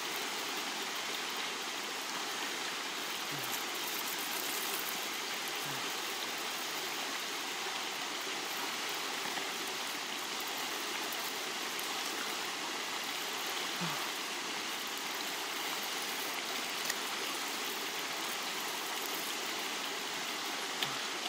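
Steady rushing hiss of water, even throughout.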